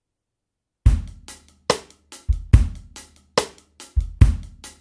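Background music: after a brief silence, a drum kit beat comes in about a second in, kick and snare hits with cymbals in a steady rhythm.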